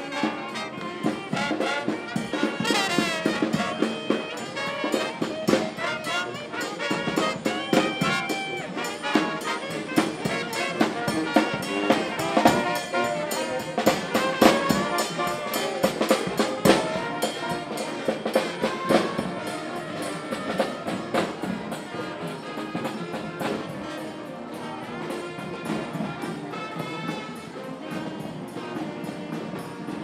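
A marching brass band playing in the street, with trumpets and trombones over drums keeping a steady beat.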